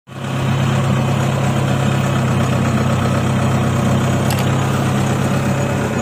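Rice combine harvester engine running steadily, a constant low hum with machinery noise over it.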